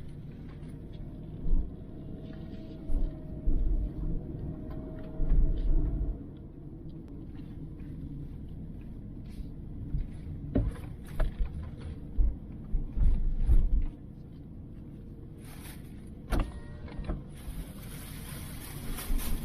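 Car driving, heard from inside the cabin: a steady low road rumble with repeated deeper thumps and a few light knocks and clicks.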